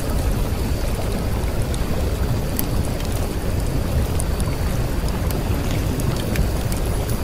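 Steady low rumbling noise with scattered faint crackles, like rain or a storm, with no clear tune or beat.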